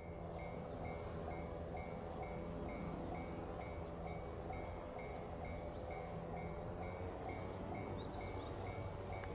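Japanese railway level-crossing warning bell ringing steadily, about three strikes a second, with a few short high chirps in the background.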